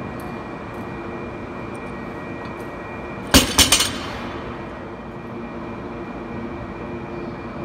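Steady mechanical hum, broken a little past three seconds in by a quick run of four or five sharp metal clanks of gym weights.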